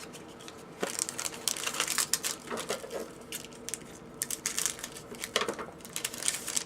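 Hockey trading cards and their pack wrapper being handled: a run of quick crinkles and rustles that starts about a second in and stops near the end.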